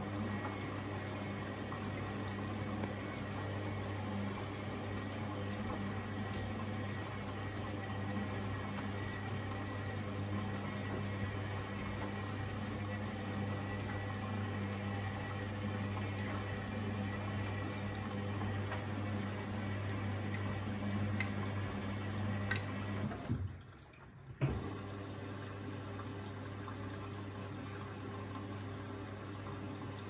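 Arçelik 7103 Y front-loading washing machine tumbling a wet load in its wash phase: a steady motor hum with water sloshing and splashing in the drum. The sound drops away for about a second near the end, then picks up again.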